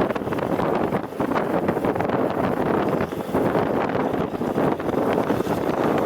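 Wind buffeting the microphone during a ride on a GAZ-66 truck, over the steady running noise of the truck.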